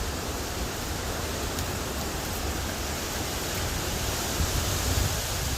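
Steady rushing noise of hurricane wind and driving rain, with no let-up.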